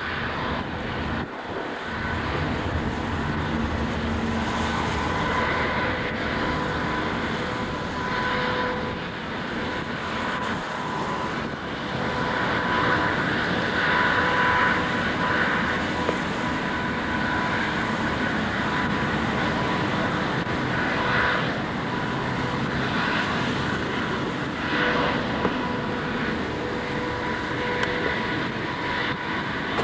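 Large wave-piercing catamaran ferry passing close by under power: a steady engine drone with a constant high whine, swelling a little as it goes past.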